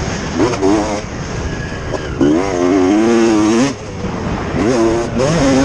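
Motocross bike engines revving on track, their pitch rising and falling as the riders work the throttle, over a steady rush of noise.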